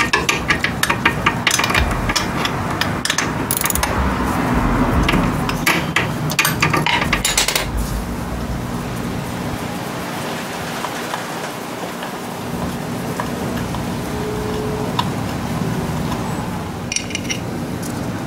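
A socket ratchet on a 10 mm socket clicking in quick runs as the exhaust's mounting bolts under the engine are undone. It goes quiet to a steady hiss after about eight seconds, with a few light clinks near the end.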